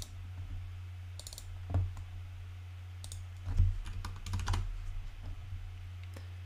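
Computer keyboard keystrokes and mouse clicks, scattered and irregular, with the sharpest ones near two seconds in and a cluster around four seconds in, over a steady low hum.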